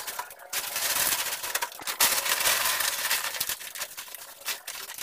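Plastic sheeting and a sack crinkling and rustling in quick irregular crackles as bedding is spread on the floor of a wooden cage.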